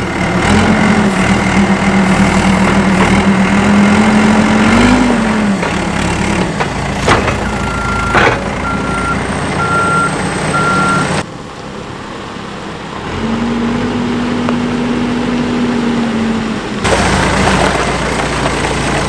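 Caterpillar 420D backhoe loader's diesel engine running as it drives with a log on its pallet forks, revving up briefly about five seconds in. A sharp knock comes a little past a third of the way through, then a backup alarm beeps four times.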